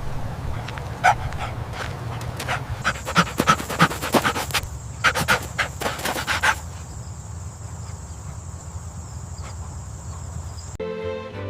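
A dog panting in quick breaths, out of breath from running. The panting dies away about six or seven seconds in, and music starts near the end.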